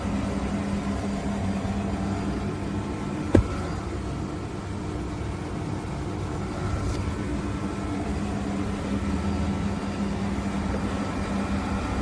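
Steady machine running noise: a constant low hum under an even rushing sound, with one sharp click about three and a half seconds in.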